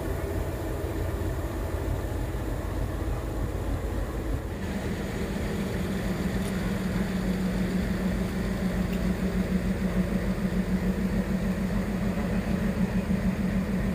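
Low rumble, then, after an abrupt change about four and a half seconds in, an engine idling with a steady low hum and a faint regular pulse, beside a stationary freight train.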